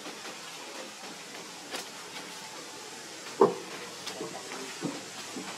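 Young macaques play-wrestling: one short, loud squeak about three and a half seconds in and a fainter one near the end, over a steady hiss.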